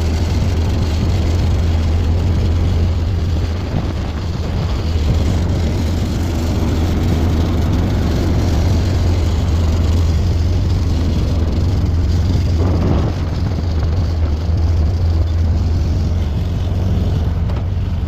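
An engine running steadily with a loud low drone, with a short extra sound about thirteen seconds in.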